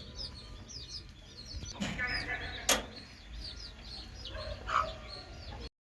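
Day-old Aseel chicks of the parrot-nose (kilimukku) type peeping continuously in many quick, downward-sliding chirps. A sharp click comes about two and a half seconds in, and the sound cuts off just before the end.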